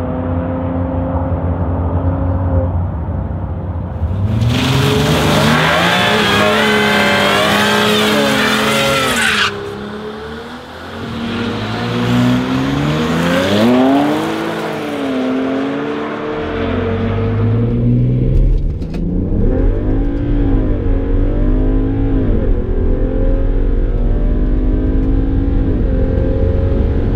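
BMW E92 335i's twin-turbo N54 3.0-litre straight-six revving hard under full acceleration on a drag strip. Its pitch climbs and drops again and again through the gear changes. From about halfway through it sounds heavier and deeper, as from inside the cabin.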